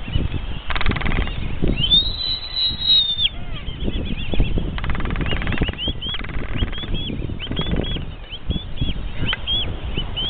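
Black-footed albatrosses in a courtship dance: several short bursts of rapid rattling bill-clacking and a drawn-out high call about two seconds in, over many short high calls from the surrounding albatross colony.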